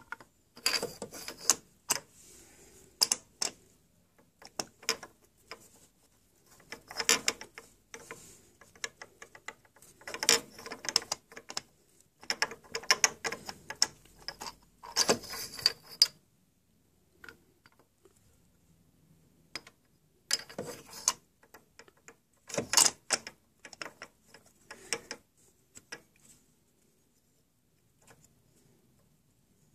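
Spark-plug socket wrench and ratchet clicking and scraping against metal in the plug well of a Ducati ST4 cylinder head, in repeated short bursts with pauses between. The plug is being worked loose from stripped threads.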